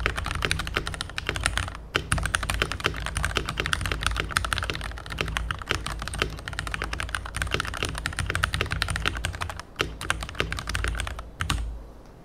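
Fast, continuous typing on a Keychron V1 mechanical keyboard: a dense clatter of keystrokes with a couple of brief pauses, thinning to a last few strokes near the end.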